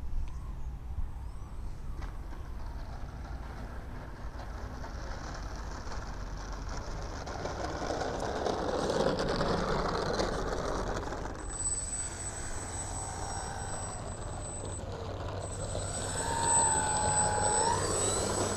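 Electric motor and propeller of a radio-controlled N250 model airplane flying a landing approach, with wind rumbling on the microphone. The propeller noise swells about halfway through, and near the end a whine comes in as the throttle is opened again after being cut.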